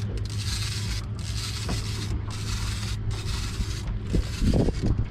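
Fishing reel whirring in repeated strokes, each about a second long with short breaks, while a big striped bass is being fought on the line. A steady low hum runs underneath, and there are a few low knocks near the end.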